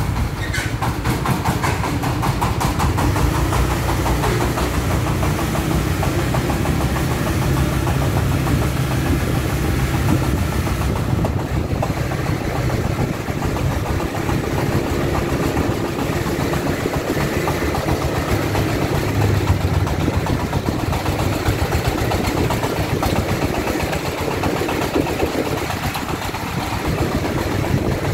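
The single-cylinder diesel engine of a homemade công nông farm truck running steadily under a load of sand, with a rapid, even knock.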